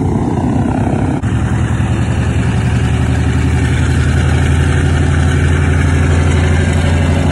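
Boeing B-29 Superfortress's four radial engines running as it taxis past, a steady low drone that grows a little louder after about three seconds.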